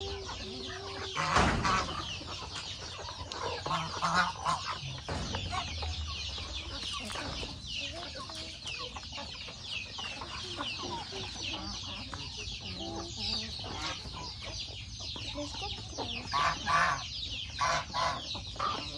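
Chickens clucking as they feed, with louder squawking calls a couple of times, most of them near the end, over a continuous high chatter of chirping.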